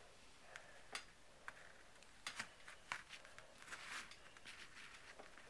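A few faint, scattered clicks and light knocks of metal folding pocketknives being handled and set on a wooden table, in an otherwise very quiet room.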